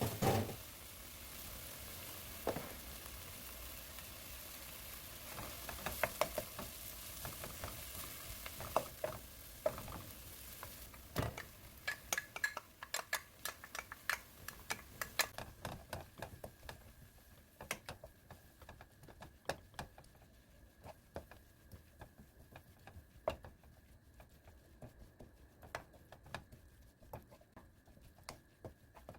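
Egg fried rice sizzling in a frying pan while it is stirred, with a spatula knocking and scraping against the pan. The sizzle fades after about ten seconds, leaving many light clicks and taps of utensil on pan and a faint steady high tone.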